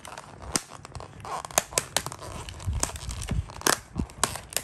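Clear plastic takeaway container being pried open by hand, its lid crackling with many sharp, irregular clicks, along with the rustle of the food box being handled.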